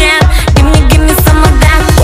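Background electronic dance music with a fast, steady beat, about four beats a second, under a sliding melody line.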